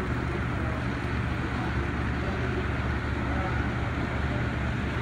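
HO scale model freight train's cars rolling steadily along the track, giving a continuous rumble with a low hum.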